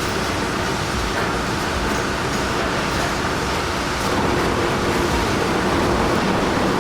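Heavy machinery running: a steady, loud mechanical rumble that cuts in suddenly and grows a little louder about four seconds in.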